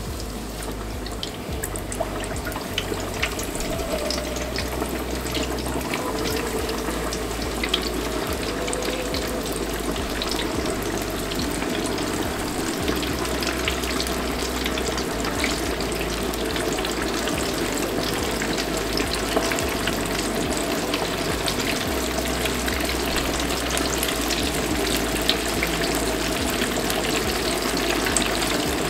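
Flour-dredged chicken pieces deep-frying in oil at 350 °F: a dense, steady sizzle and crackle of bubbling oil that builds over the first few seconds as the pieces go in, then holds.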